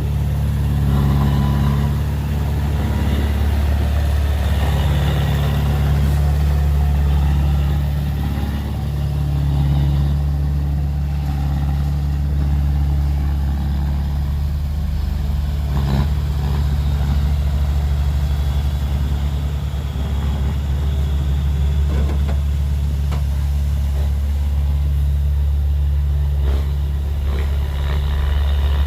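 Heavy diesel engine of an earthmoving machine running steadily at a low, even speed, with a few brief knocks.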